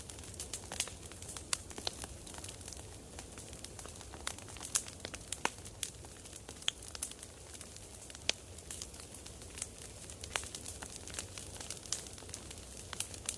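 Wood fire burning with a steady low hiss and frequent sharp, irregular crackles and pops.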